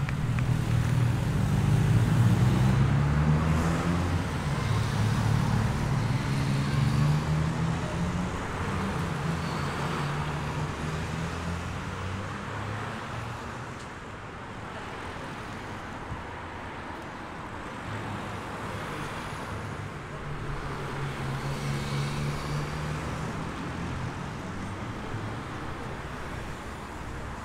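Cars of a cycling race convoy driving past one after another, each engine hum rising and falling as it passes, over steady road noise. The loudest pass comes in the first few seconds and another around two-thirds of the way through.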